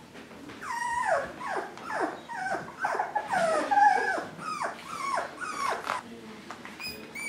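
Five-week-old mini Swiss Mountain Doodle puppies whining, a quick string of short cries that each slide down in pitch, about two a second, trailing off near the end.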